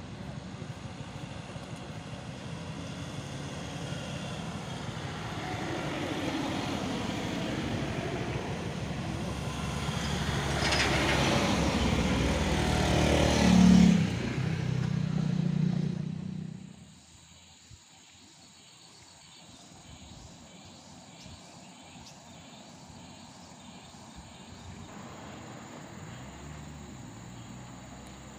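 Road traffic: vehicle engines and tyres grow steadily louder as vehicles pass on the climb, loudest about halfway through, then the sound cuts off abruptly to a much quieter, faint roadside background.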